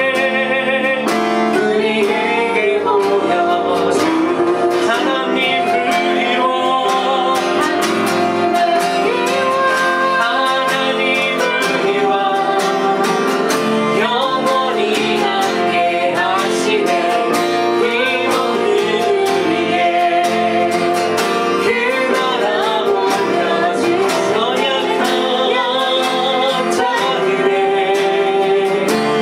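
A woman and a man singing a Korean worship song together, accompanied by a strummed acoustic guitar with an even strumming rhythm.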